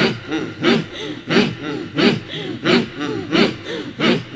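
Zikir (dhikr) chanting: voices repeating a forceful, breathy chant in a steady pulse, about three strong beats every two seconds.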